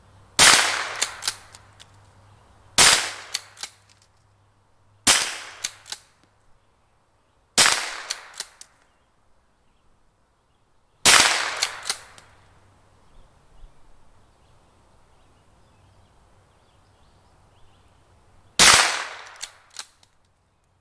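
.22 caliber rifle firing six single shots at a target, each sharp crack trailed by a few fainter cracks. The shots come a couple of seconds apart, with a longer pause before the last one.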